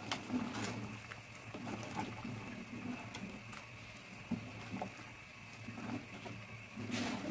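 Thick rice porridge bubbling in a metal pot while a plastic spoon stirs it, giving soft irregular pops and light scrapes over a steady low hum.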